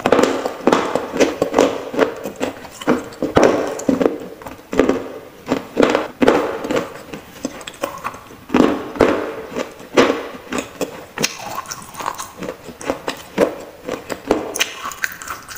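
Close-up crunching and chewing of pieces of a baked-clay gullak (earthenware piggy bank), an uneven string of crisp crunches with no pause.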